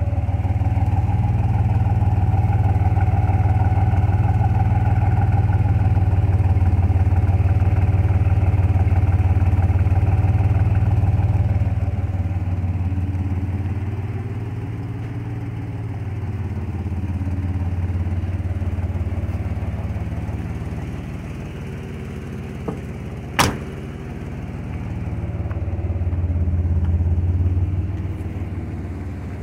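1991 GMC Typhoon's turbocharged 4.3-litre V6 idling steadily after a cold start. Its loudness rises and falls a few times after the first dozen seconds. A single sharp click comes about two-thirds of the way through.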